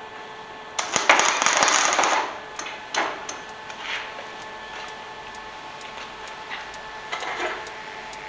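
Electric arc welder tacking steel for a gate. There is a crackling, sputtering weld of about a second and a half just after the start, then short crackling tacks about three and four seconds in and again near the end.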